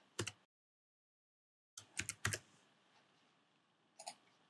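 Computer keyboard keys clicking as a password is typed: two quick keystrokes, a pause, a cluster of four, then two more near the end.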